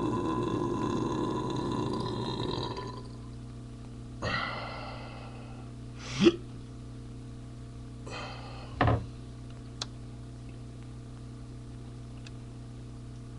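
A man belching: a long drawn-out burp that fades out about three seconds in, brought on by drinking Colt 45 malt liquor. After it come a few shorter throat noises, the loudest a sharp one about six seconds in and another near nine seconds.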